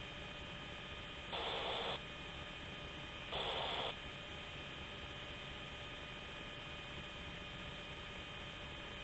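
Open radio or intercom channel with a steady hiss and electrical hum. Twice, a short burst of static lasting about half a second breaks in, about a second and a half in and again about three and a half seconds in.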